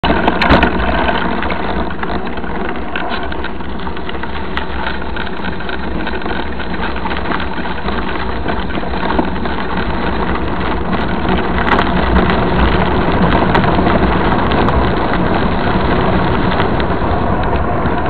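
Steady rushing noise of riding a mountain bike along a dirt road: wind on the microphone mixed with tyres rolling on gravel, with a few brief clicks.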